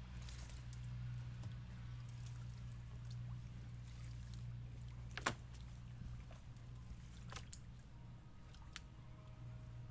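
Wet cast net being handled and pulled through the mesh in a wooden canoe. A few sharp knocks against the boat, the loudest about five seconds in, over a steady low hum.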